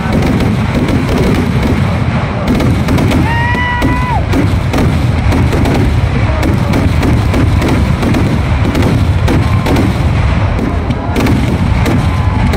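Vedikkettu fireworks display: a dense, unbroken barrage of rapid bangs and crackle, the explosions running together. A short whistle that drops away at its end sounds about three seconds in.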